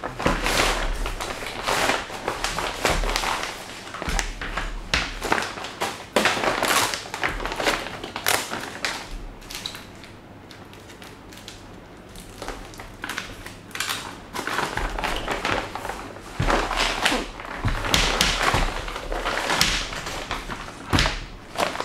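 Thick plastic sleeves rustling and crinkling in irregular bursts as rifles are slid out of them, with a few knocks of the rifles against the table. The rustling dies down for a few seconds in the middle.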